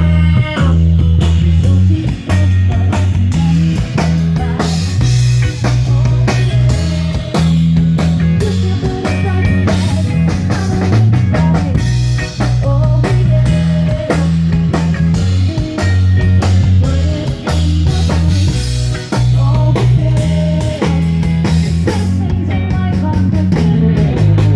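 A live rock band playing: a strong, moving bass line under a drum kit, with electric guitar on top.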